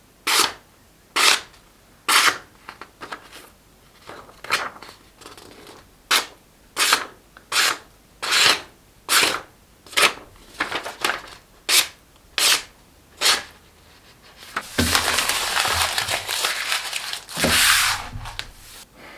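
Freshly sharpened kitchen knife slicing through a sheet of paper in a series of short, quick strokes, about one or two a second, showing the blade now cuts paper cleanly. Near the end comes about three seconds of continuous paper rustling and crumpling.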